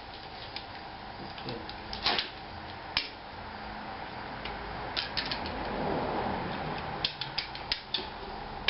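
Scattered light metallic clicks and clinks of hand tools and sockets being handled, with a soft scraping rustle in the middle.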